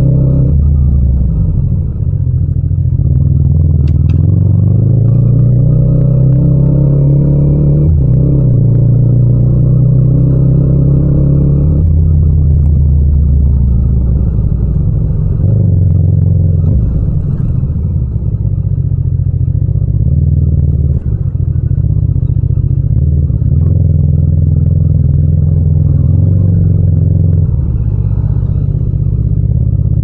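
Yamaha MT-07's 689 cc parallel-twin engine and exhaust running at low revs, its pitch rising and falling several times as the throttle is rolled on and off.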